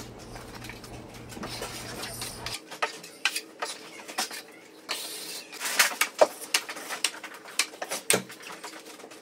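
Steel taping knife scraping and clicking against a metal mud pan and spreading joint compound over a drywall seam, in short irregular strokes.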